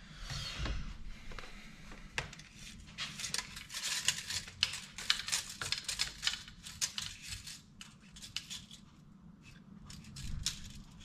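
Steel tape measure being pulled out and handled along a bamboo cane: a run of quick, light metallic clicks and rattles that thins out for a moment near the end.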